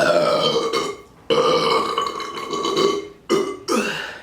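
A woman's loud burps after chugging beer: one about a second long, then a longer one of nearly two seconds, then two short ones near the end.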